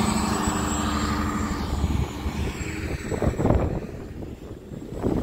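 Motor vehicle engine running steadily, fading out after about two seconds, followed by uneven bumps and rustling.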